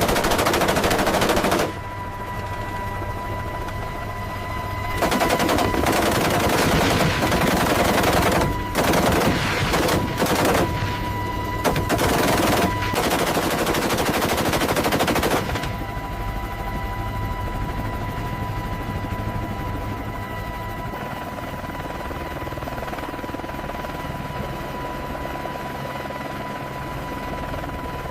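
Rapid-fire machine gun firing long sustained bursts: one short burst at the start, then nearly ten seconds of fire broken by a few brief pauses. A steady high whine and a low engine hum run underneath.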